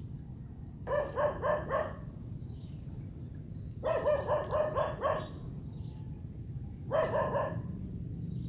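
A dog barking in three quick runs of yaps, about four or five barks a second, the middle run the longest. A steady low rumble runs underneath.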